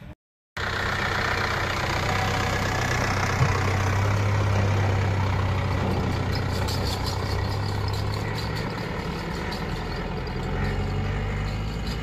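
Small cab-over pickup truck's engine running steadily with a low hum as the truck pulls away on a dirt track, growing a little fainter toward the end. One short knock about three and a half seconds in.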